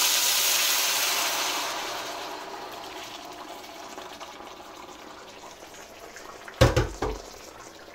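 Mutton and its cooking liquid poured from an aluminium pressure cooker into a hot wok: a loud gushing hiss of liquid hitting the hot metal that fades over about three seconds to a quiet simmer. Near the end there are two short knocks.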